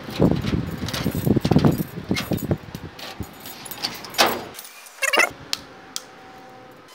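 A bunch of keys jangling and rattling at a door lock, followed by a few separate knocks and a short rattle as the door is unlocked and opened.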